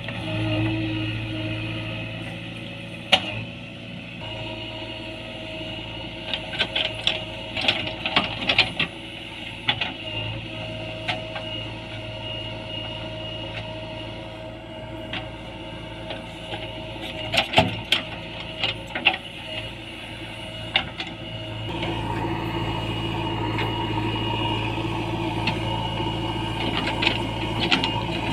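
JCB 3DX backhoe loader's diesel engine running steadily while it digs, with scattered sharp knocks and clanks. The engine gets louder about three-quarters of the way through.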